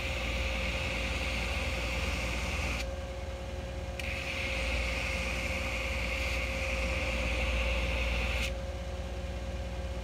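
Electric belt grinder running with a steady hum while steel is pressed against the belt at its contact wheel, giving a hissing grind twice: for about three seconds from the start, then again from about four seconds to eight and a half. Between and after the passes only the grinder's motor and belt hum are heard.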